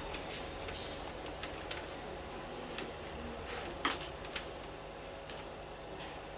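Steady low hum with a few light clicks about four and five seconds in.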